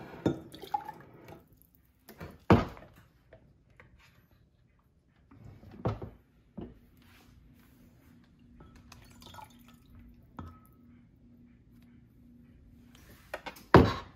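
Ladle dipping into a slow cooker's crock and pouring broth into a glass measuring cup: liquid pouring and dripping, broken by several sharp clinks and knocks of the ladle against the crock and cup, loudest about two and a half seconds in and just before the end.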